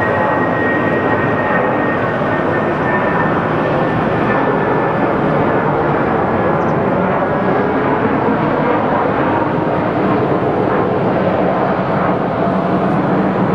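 Twin-engine jet airliner climbing out after takeoff, its engines making a loud, steady roar. A high whine slowly drops in pitch over the first few seconds.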